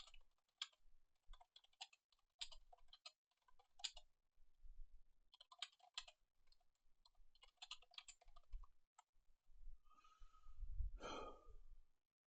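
Faint typing and clicking at a computer keyboard, in irregular clusters of quick keystrokes with short pauses between them. Near the end comes a single long, breathy exhale.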